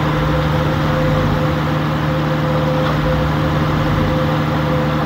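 Purse-seine fishing boat's engine running steadily under a little throttle, with a low rumble that swells and fades twice.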